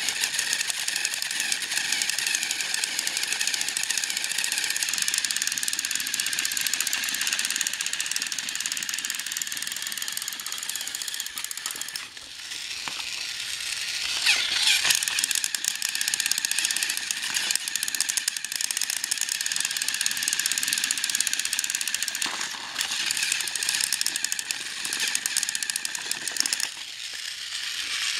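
Battery-operated TrackMaster toy train engines running, their small motors and plastic gears giving a steady rattling whir. The whir drops briefly about twelve seconds in, then comes back louder.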